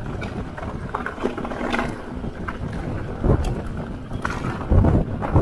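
Rocky Mountain mountain bike riding fast down a stony dirt trail: tyre noise over dirt and stones, with the chain and frame rattling in many small clicks and knocks, and wind blowing over the action camera's microphone. Heavier thumps come about three seconds in and again near the end as the bike hits bumps.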